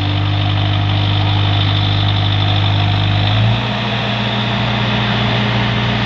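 Case backhoe loader's diesel engine running steadily close by, its note shifting to a different pitch about three and a half seconds in as the backhoe works.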